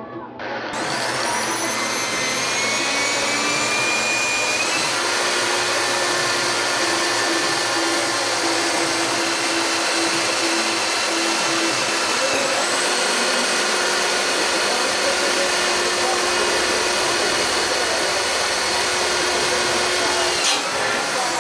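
Corded electric drill boring into sheet metal under load. Its motor whine climbs in pitch over the first few seconds as it comes up to speed, holds steady, and begins to wind down as the drill stops at the end.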